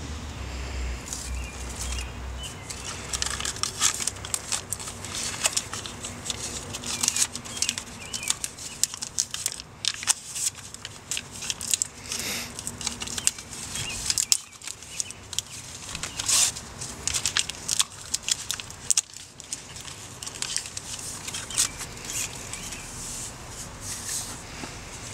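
Tape being pulled off its roll and wrapped over the end of a plastic geothermal loop pipe: a run of irregular ripping and crinkling noises.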